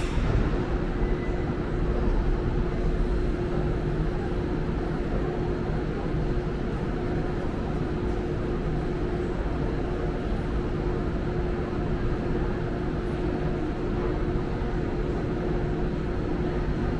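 Montreal Metro's rubber-tyred train running at a steady speed: a low rumble with a constant hum.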